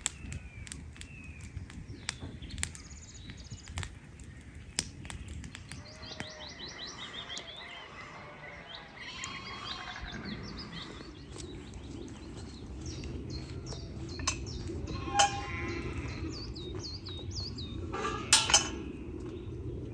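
Wild birds singing and chirping over a low steady wind rumble, with a campfire crackling in the first few seconds. Two sharp knocks near the end.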